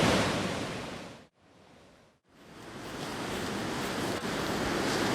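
Steady outdoor rushing noise, like surf or wind, that fades out to near silence about a second in and fades back up after about a second of quiet.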